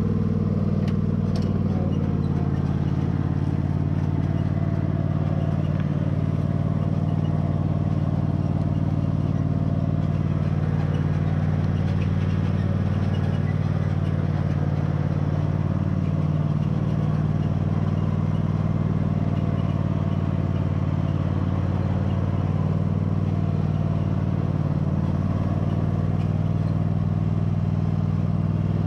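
Cub Cadet riding lawn mower's engine running steadily as the mower is driven across the grass. Its pitch wavers briefly about halfway through.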